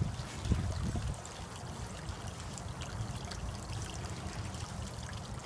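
Water steadily trickling and splashing into a small backyard fish pond.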